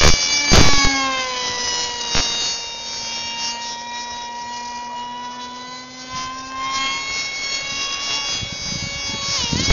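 Electric outrunner motor and 7x4 wooden propellers of a 4S LiPo-powered RC speed wing making a high whine as it flies. The pitch falls about half a second in, holds steady, climbs again after about six seconds and dips sharply just before the end. A few short rushes of noise come near the start.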